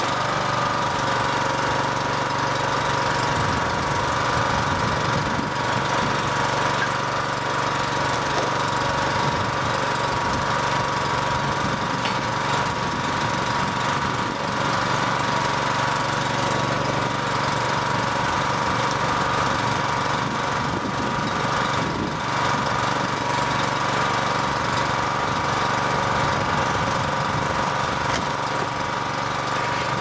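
Small gasoline engine on a towable backhoe running steadily at an even speed, with a constant whine over the engine note.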